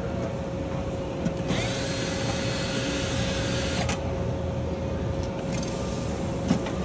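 Cordless drill with a Phillips bit backing a screw out of an aluminium diamond-plate case, running for about two and a half seconds starting about one and a half seconds in, over a steady hum.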